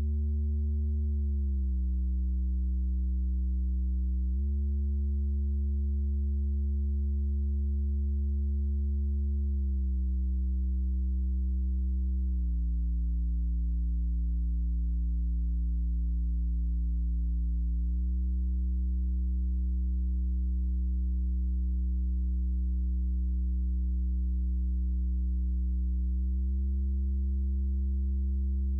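Software modular synth oscillator (Softube Modular's Doepfer A-110 VCO) droning a steady low tone with a few overtones, stepping slightly up or down in pitch about six times as its tune value jumps.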